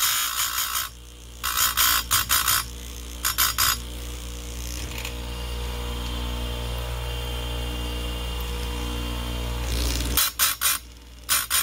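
Electric chainsaw chain grinder sharpening a dull chain: the motor hums steadily while the grinding wheel is brought down onto the cutters in short scratchy bursts, three in the first four seconds and a quick run of them near the end, with only the motor running in between.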